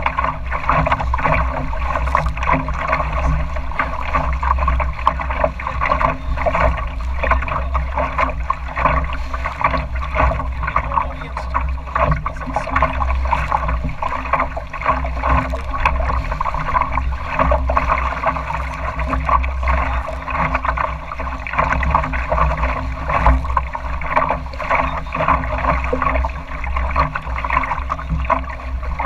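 Choppy water splashing and gurgling against the hull of a small Northeaster Dory sailboat under way, with a steady low rumble underneath.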